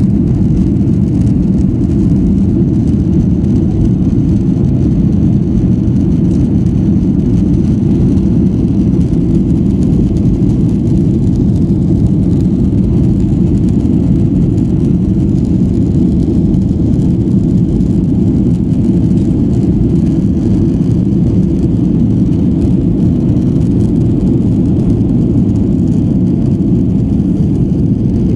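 Boeing 737-700's CFM56 jet engines and airflow making a steady, even low rumble that holds one level throughout.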